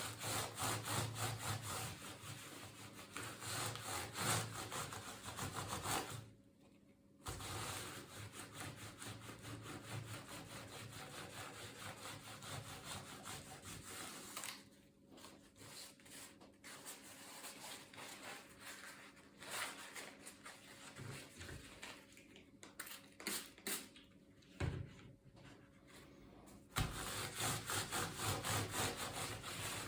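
Quick back-and-forth rubbing strokes on the laptop's parts, several a second, as in scrubbing or wiping during cleaning. The rubbing stops briefly a few times, and there are two knocks near the end.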